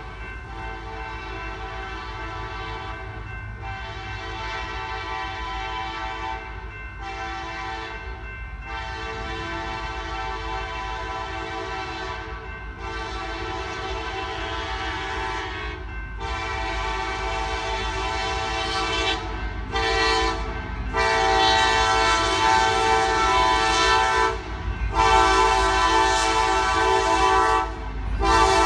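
Nathan K5LA five-chime air horn on a KCS SD70ACe locomotive blowing a series of long blasts with short breaks, growing louder as the train approaches.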